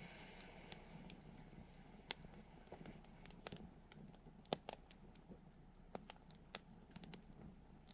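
Wood campfire crackling: scattered sharp pops and snaps at irregular intervals over a faint low hiss of burning, with the loudest pop about four and a half seconds in.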